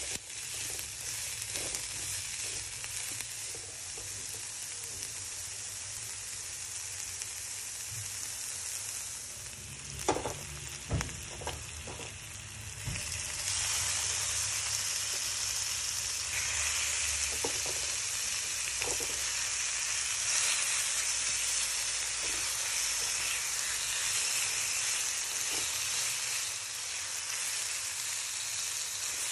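Chopped vegetables sizzling in oil in a frying pan, stirred with a spatula. A few knocks come about ten seconds in, then the sizzle turns louder as raw chicken pieces go into the pan.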